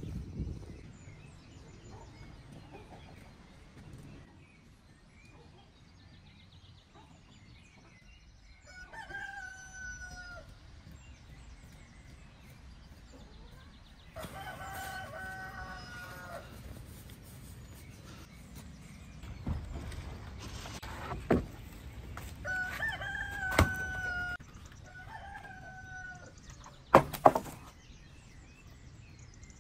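A rooster crowing four times, the longest crow about halfway through. A few sharp knocks come in the second half, two loud ones close together near the end.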